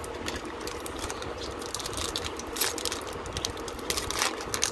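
Foil wrapper of a Yu-Gi-Oh booster pack crinkling and crackling as it is handled and torn open. The sharpest crackles come about two and a half seconds in and near the end.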